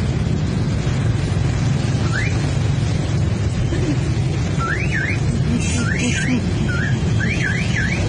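Aftermarket electronic siren on a motor scooter giving short up-and-down whooping sweeps, once about two seconds in and then in a rapid string over the last three seconds. Under it is the steady low rumble of motorcycle engines idling in traffic.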